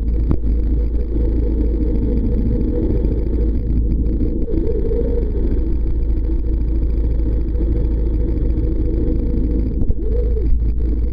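Boat engine rumbling steadily, heard muffled with nearly all the sound in the deep bass, with slight rises and falls in pitch a couple of times.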